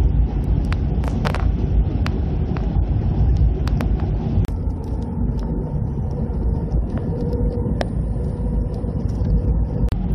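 Road and engine noise heard from inside a moving car: a steady low rumble with scattered light clicks.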